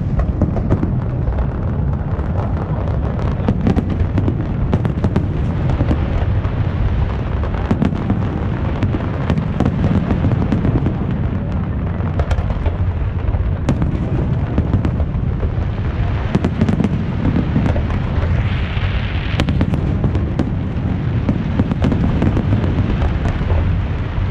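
Aerial fireworks going off in a dense, continuous barrage: overlapping booms with many sharp cracks throughout.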